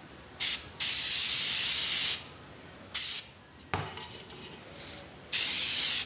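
Aerosol spray paint can hissing in bursts: a short puff, a long spray of over a second, another short puff, then a final spray near the end. A light knock about halfway through.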